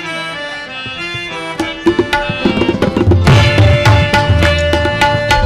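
Instrumental opening of a qawwali: a keyboard plays a held melody, then tabla and drums come in about two to three seconds in and beat a steady rhythm under it.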